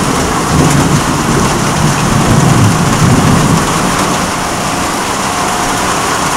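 Heavy rain falling steadily in a thunderstorm, with a low rumble of thunder rolling through the first few seconds.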